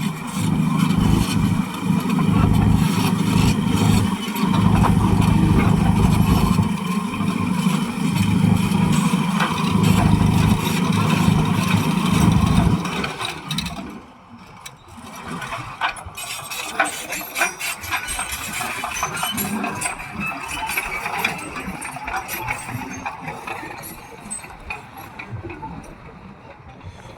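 Caterpillar D9N bulldozer's diesel engine running loud and steady, then dropping sharply quieter about thirteen seconds in. A fainter sound with irregular clicks and rattles follows.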